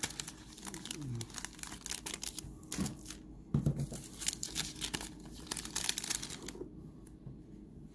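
Foil wrapper of a Garbage Pail Kids Chrome trading-card pack crinkling and tearing as the pack is opened, a run of crackles that dies away about seven seconds in.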